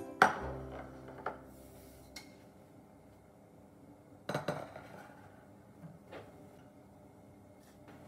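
A stainless steel saucepan knocks down sharply onto a steel worktop and rings briefly, followed by a lighter knock about a second in. About four seconds in comes a short cluster of metal clinks against the pan.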